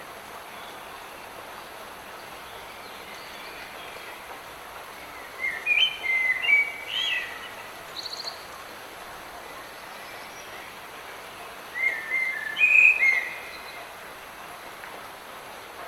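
Steady light rain falling in a forest, with songbirds singing short chirping phrases twice: about six seconds in and again around twelve seconds.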